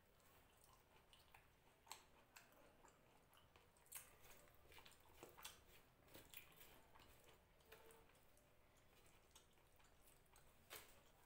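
Faint wet squishing and clicking of rice and fish being mixed by hand on a tray, with chewing of a mouthful of rice.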